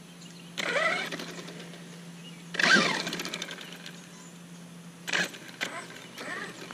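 Redcat Landslide XTE electric RC monster truck's motor whining in short throttle bursts: one about a second in, a louder one near the middle whose pitch falls as the truck slows, and a few quick blips near the end.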